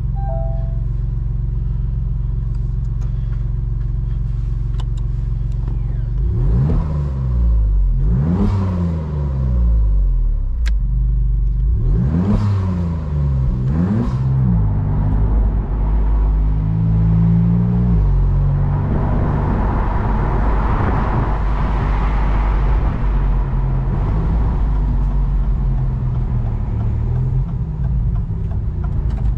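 Maserati MC20 Cielo's mid-mounted 3.0-litre twin-turbo Nettuno V6 idling steadily, then pulling away. Its revs rise and drop four times as it accelerates through the gears, and it then settles to a steady cruise with wind rushing past the open cabin.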